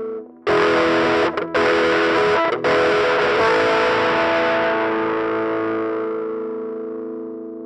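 Distorted electric guitar played through a Line 6 UX2 interface with GearBox amp modelling. A chord is struck hard about half a second in, choked and struck again twice, then left to ring and fade slowly.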